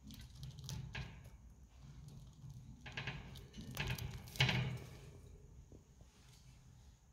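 A hamster gnawing at a hanging seed stick: irregular small crunching and crackling bites as seeds and husks break off, loudest a few seconds in, then tapering off.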